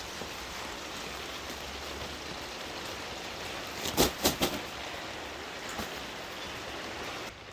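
Steady rain falling, heard as an even hiss. About four seconds in comes a quick run of three sharp knocks.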